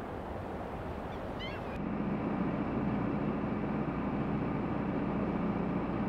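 Wind blowing, with a brief series of bird chirps about a second in. Then, about two seconds in, a boat's engine takes over, running with a steady drone over the wash of water.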